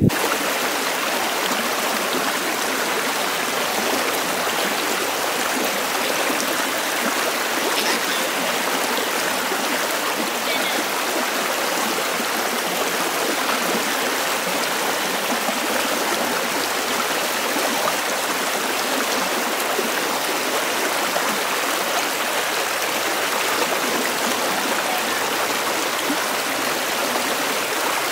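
Shallow creek rushing over stones, a steady, even rush of water.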